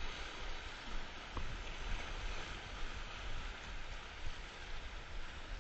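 Sea surf washing over and breaking around shoreline rocks, a steady rushing noise.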